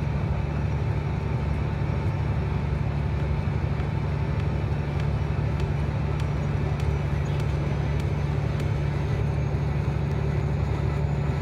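Steady road noise of a car driving, heard from inside: a constant low hum with a wash of road noise above it.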